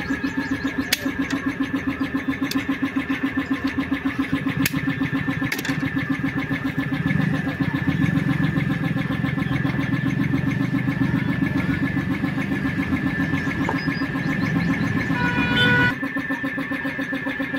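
A small engine running steadily with a rapid, even pulsing beat. It gets louder about seven seconds in and drops back near the end, and a few sharp clicks sound over it in the first six seconds.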